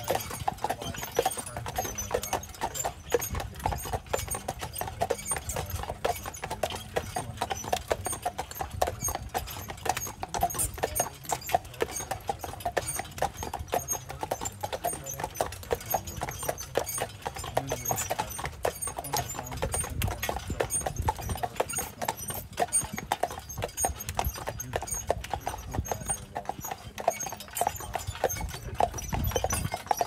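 Hooves of a pair of carriage horses clip-clopping at a steady walk on a paved trail, a continuous rhythm of sharp hoof strikes.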